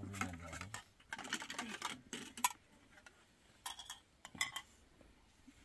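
Small plates clinking against one another and on a metal serving tray as they are set down, a few sharp separate clinks spread over several seconds.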